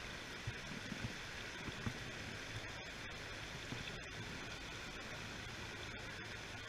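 Steady rush of a river or stream flowing, with a few soft low knocks in the first two seconds.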